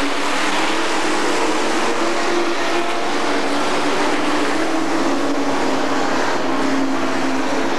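Several super stock dirt-track race cars' engines running together on the oval, a steady, loud drone with slightly wavering pitch.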